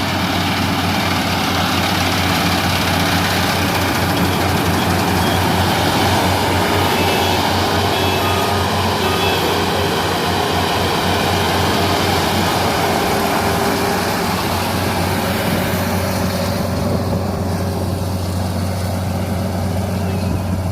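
Combine harvester running steadily: a constant engine drone with the dense mechanical noise of its working parts. The high end of the noise softens about sixteen seconds in.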